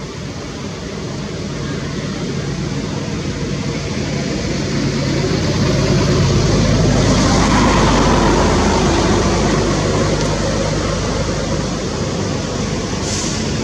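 A motor vehicle's engine running as it passes, growing louder to about halfway through and then fading a little.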